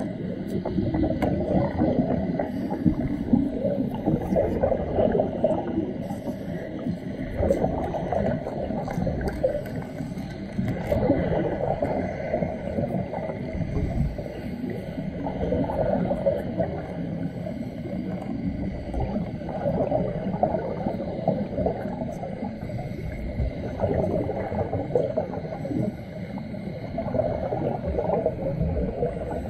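Underwater arc welding arc burning without a break, heard through the water as an irregular, gurgling noise.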